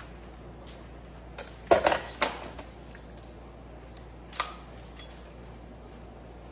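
Small metal model-engine parts clinking and knocking against each other and a steel workbench as they are handled. There is a quick cluster of sharp clanks about two seconds in and a few lighter knocks later.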